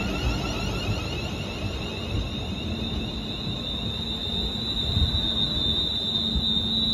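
A ScotRail electric multiple-unit train at the platform, running with a steady high-pitched whine and a low hum from its electrical equipment. For the first few seconds a rapid series of rising chirps sounds over it and then fades.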